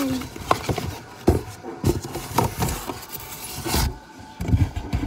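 Cardboard box and lid being handled and fitted together: irregular knocks and rubbing, scraping rustles of cardboard.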